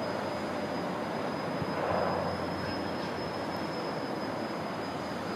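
Pair of Class 37 diesel locomotives with English Electric V12 engines running as they approach slowly, hauling a nuclear flask wagon: a steady engine rumble that swells slightly about two seconds in.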